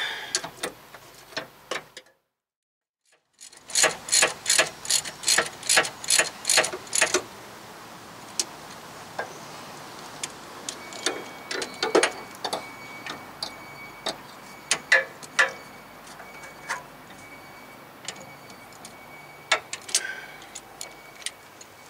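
Hand ratchet clicking in a quick, even run, about three clicks a second, as a rear brake caliper bracket bolt is cranked in, followed by scattered single clicks and taps of the tool. A brief moment of silence comes about two seconds in.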